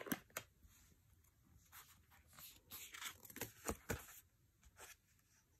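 Tarot cards being flipped and handled: a scattered series of faint, short swishes and taps of card stock, dying away about five seconds in.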